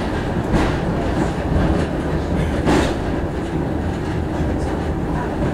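Funicular cable car running on its rails, heard from inside the car: a steady low rumble with irregular clicks and knocks, the strongest about three seconds in.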